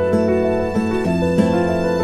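Instrumental background music: a gentle melody of plucked notes, each starting sharply and then ringing on.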